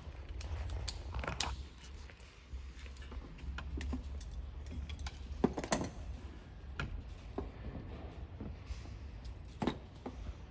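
Irregular small clicks and rattles of hands working the parts of an electrical plug and its wires, over a steady low hum; the sharpest clicks come about five and a half seconds in and again near the end.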